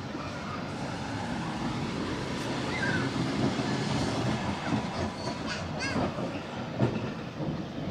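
Leeds tram 399, a vintage double-deck electric tram, rumbling past on steel wheels over rails set in cobbles, growing louder as it draws alongside. In the second half the wheels click and knock over the rail joints.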